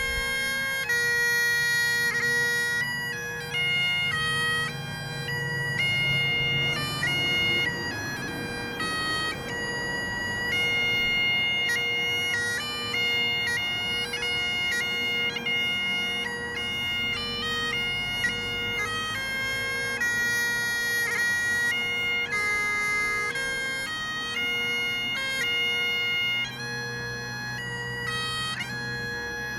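Bagpipes playing a melody: the chanter steps from note to note over a steady, unbroken drone.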